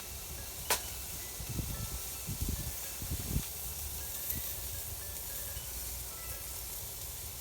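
Meat sizzling on a grill: a steady hiss, with a sharp click about a second in and a few low knocks.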